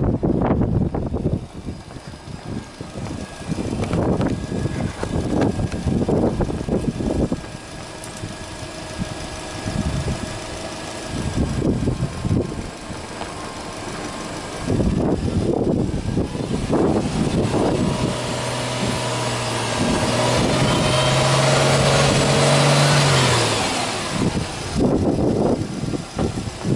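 Subaru Legacy 2.0GT spec B's turbocharged flat-four (boxer) engine free-revving in park: short throttle blips a few seconds apart over a steady running note, and one longer held rev about two-thirds of the way through that rises slightly and then drops away.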